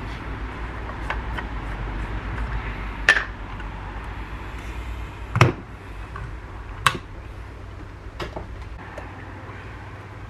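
Metal paint tins, clear coat and hardener, being opened, handled and set down on a workbench while mixing 2K clear coat: a few sharp clinks and knocks, the loudest about halfway through, over a low hum that fades out about two-thirds of the way in.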